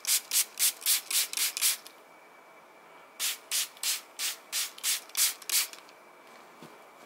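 Small hand-held pump spray bottle misting water, pumped in quick strokes about three a second. A run of about seven sprays is followed by a short pause, then about eight more.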